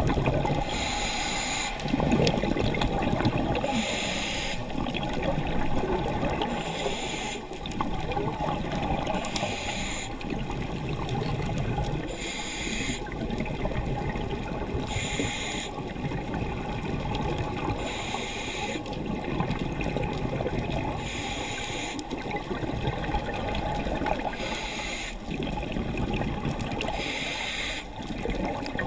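Scuba diver breathing through a regulator underwater: a short hiss of inhalation about every two and a half to three seconds, with the low bubbling of exhaled air between breaths.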